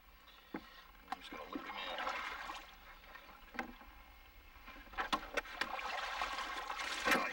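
Water splashing and sloshing beside a small boat as a flathead catfish is hauled from the water, with scattered sharp knocks and splashes in the last couple of seconds, the loudest near the end.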